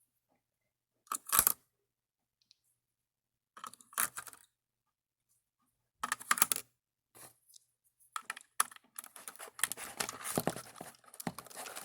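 Batteries being handled and pushed into a plastic toy's battery compartment: a few separate clicks and scrapes, then nearly continuous rattling and handling in the last few seconds.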